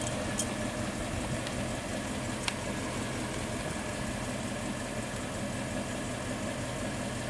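2013 Ford Mustang Boss 302's 5.0-litre V8 idling steadily, with a couple of faint clicks over it.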